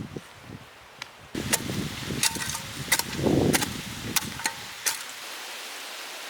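A series of sharp knocks and taps, about six over three seconds, with a louder handling sound among them about three seconds in.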